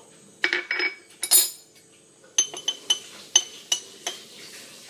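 A metal spoon clinking against a drinking glass while stirring liquid, a quick run of short ringing clinks through the middle. A few knocks of glassware being handled come first.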